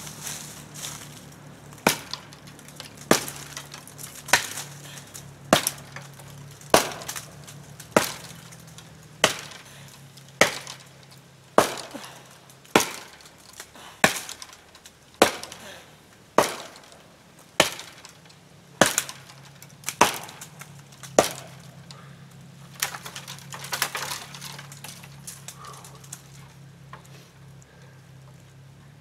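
Steady chopping blows of a hand-held blade into the base of a small tree, about one every second and a quarter, around seventeen strikes, then a few lighter hits before they stop.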